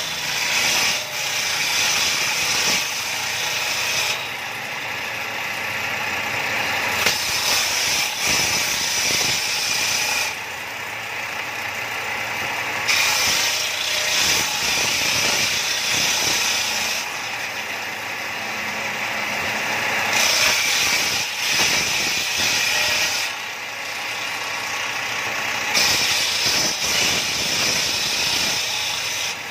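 Table saw ripping planks lengthwise: the blade runs steadily and turns harsh and loud each time it bites into the wood, about five cuts of a few seconds each, with the saw spinning freely in between.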